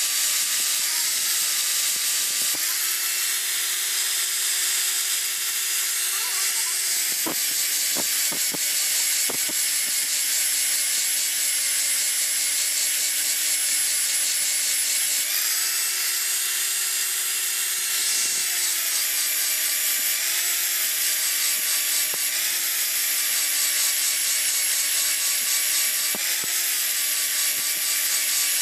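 Angle grinder running continuously, its disc grinding a steel knife blade with a high hiss over the motor's whine. The whine steps up and down in pitch a few times, and a few sharp clicks come about eight seconds in.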